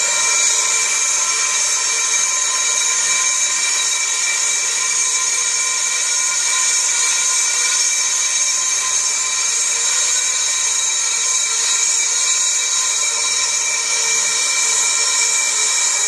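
On-car brake lathe running, spinning an Opel Zafira C Tourer brake disc while its cutting tool skims the rotor face: a steady motor whine with several fixed tones and a strong high hiss.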